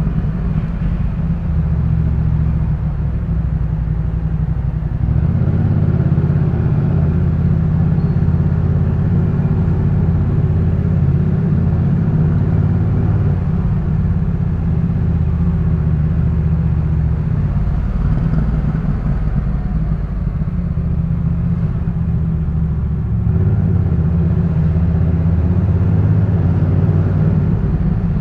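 Yamaha MT-07's parallel-twin engine running through a Jeskap K4 full exhaust system, a steady low exhaust note with a few small shifts in engine speed.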